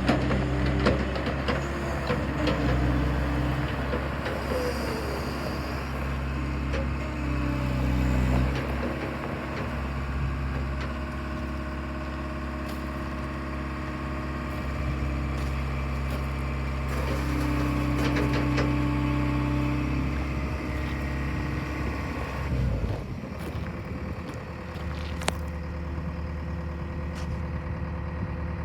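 Liebherr A316 Litronic wheeled excavator's diesel engine running, its note rising and falling with load as the machine works, with occasional short knocks. About three quarters of the way through it dips, then settles into a lower, steady run.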